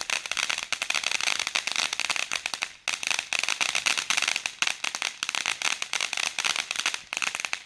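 Fireworks crackling: a dense, rapid run of sharp pops and crackles with a short lull about three seconds in, cutting off suddenly at the end.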